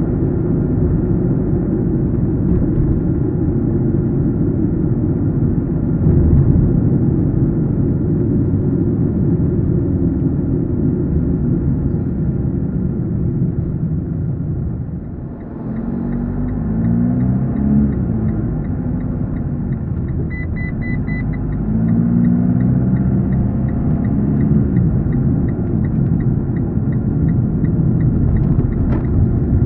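Car driving: steady engine and road rumble that dips as the car slows about halfway through, then the engine climbs in pitch twice as it pulls away. A turn-signal indicator ticks about twice a second from the slowdown onward.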